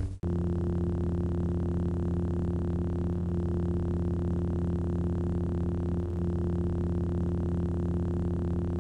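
Lightsaber sound-effect idle hum: a steady, even low electronic drone with several held tones and a faint hiss, unchanging throughout.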